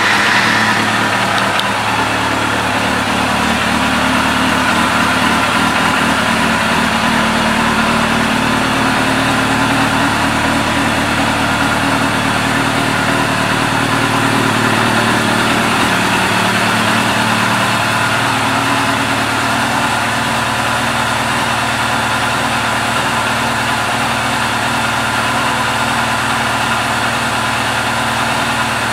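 1997 Suzuki RF900R's liquid-cooled inline-four engine, just started, idling through its Yoshimura aftermarket exhaust. The revs sit a little higher for the first second or two, then it settles into a steady idle.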